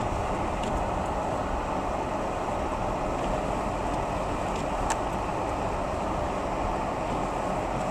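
Steady road noise of a car being driven, with one sharp click about five seconds in.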